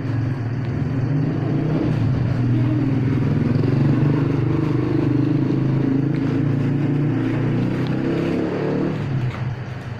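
A motor vehicle's engine running with a steady low hum, fading away near the end.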